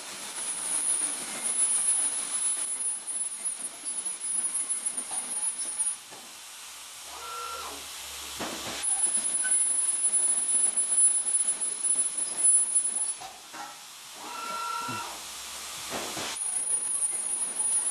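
Electric welding arc hissing and crackling over a steady high whine, in three runs broken by two pauses of a few seconds each.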